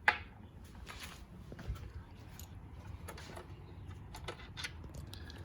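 Hand tools and loose bolts clicking and tapping while bolts are worked free under a truck: one sharp metallic click at the start, then scattered light clicks and ticks.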